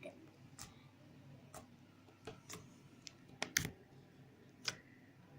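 Pink glitter slime being squeezed and worked in the hands, giving faint scattered clicks and pops, about eight of them, the loudest about three and a half seconds in.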